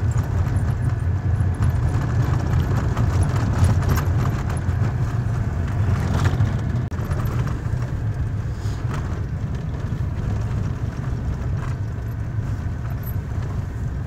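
Strong wind buffeting the microphone: a continuous, gusting low rumble, with a few faint knocks.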